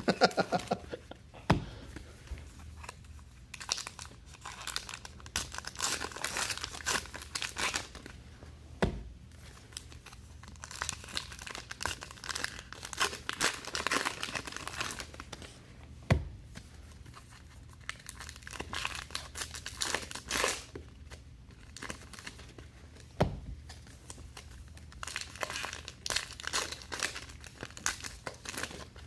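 Trading card pack wrappers crinkling and tearing as packs of 2019 Allen & Ginter baseball cards are ripped open, in irregular spurts with short pauses. A few soft low thuds about every seven seconds.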